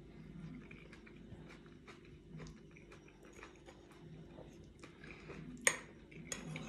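Mouth chewing a juicy fruit salad of grapes and kiwi in oat yogurt, with many small wet clicks, close to the microphone. A sharp clink of a metal spoon against the ceramic bowl stands out about five and a half seconds in.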